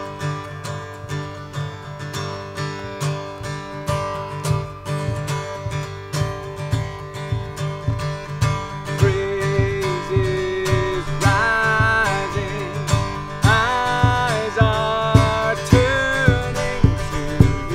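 Band music led by strummed acoustic guitar over a steady beat and bass; a gliding lead melody comes in about halfway through.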